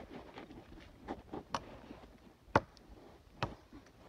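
A blade chopping into wood: a few sharp strikes about a second apart, with a couple of lighter taps before them.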